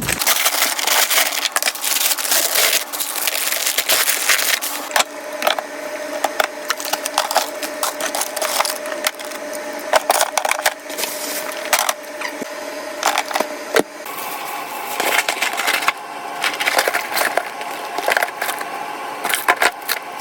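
Rapid, irregular clicking and crackling of small hard objects being handled, with no speech or music.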